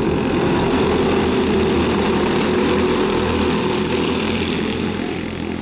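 A pack of dirt-oval racing karts with clone single-cylinder four-stroke engines running hard as they pass close by, many engines blending into one dense buzz that is loudest in the middle and eases off near the end.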